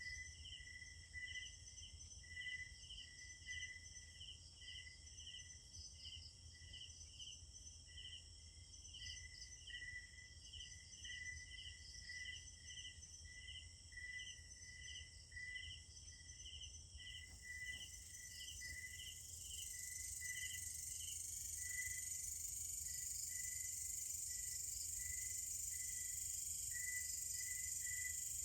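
Night chorus of crickets and other insects: steady, evenly repeated chirps at two pitches over a continuous high-pitched insect trill that grows louder about two-thirds of the way through.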